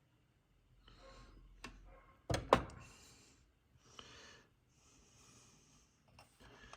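A few sharp clicks and knocks from handling the amplifier's controls. The loudest pair comes about two and a half seconds in, with soft breathing between the clicks.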